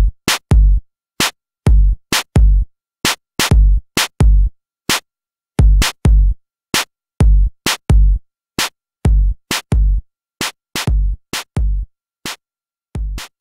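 Electronic drum-machine beat of separate hits, each with a deep low thump, and complete silence between the hits.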